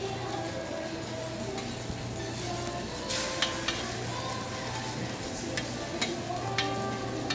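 Egg and shredded-vegetable patty sizzling on a flat-top griddle while a metal spatula scrapes and taps against the griddle plate, with a louder scrape about three seconds in.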